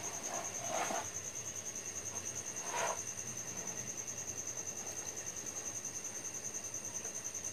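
Cricket chirping in a steady, rapidly pulsing high-pitched trill. Brief handling noises as a ceramic plate is shifted on a wooden board, about a second in and again just before three seconds.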